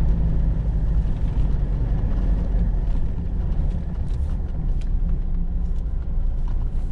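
Steady low rumble of a vehicle's engine and tyres while driving on a paved road, easing slightly about three seconds in. A few faint ticks come through in the second half.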